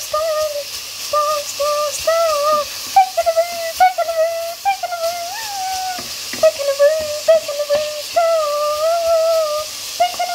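Someone humming a wordless, wavering tune over bacon sizzling in a frying pan, with occasional sharp clicks.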